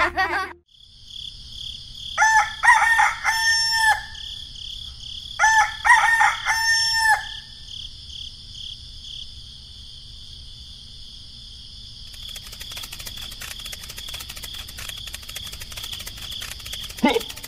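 A rooster crowing twice, about three seconds apart, each crow a few short notes ending in a long held note. Under the crows runs a steady high insect-like trill, and a faint rapid ticking comes in after about twelve seconds.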